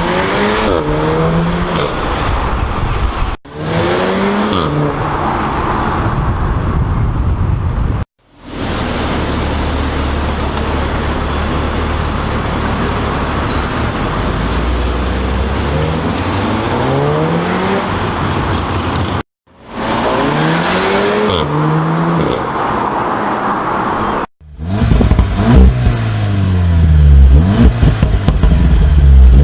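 Volkswagen Golf R (Mk7.5) 2.0-litre turbocharged four-cylinder engine accelerating hard through the gears, the revs rising and dropping back again and again at each shift. The sound is broken by four abrupt cuts between clips and is loudest near the end.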